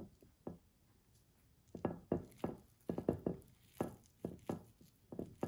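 Hands tearing injera and picking up pumpkin stew off a ceramic plate: a run of quick, irregular soft knocks and clicks, a couple near the start and a dense cluster from about two seconds in.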